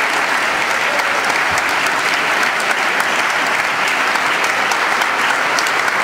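Audience applauding steadily, a dense sustained wash of many hands clapping.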